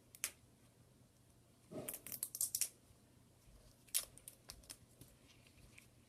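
Small hand tools clicking and scraping on an iPhone 6 screen assembly during repair: a sharp click, then a short cluster of scratchy clicks and rustling about two seconds in, another sharp click near the middle, and a few lighter ticks.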